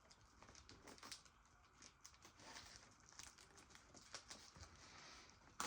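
Faint handling noises from a VHS tape and its plastic case or wrapping: soft crinkling with scattered small clicks, and one sharper click near the end.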